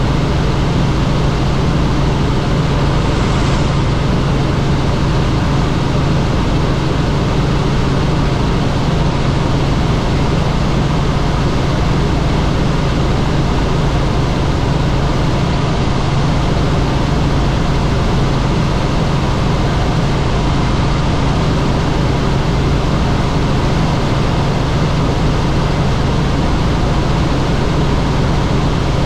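Helicopter in flight: loud, steady rotor and engine noise with a constant low hum.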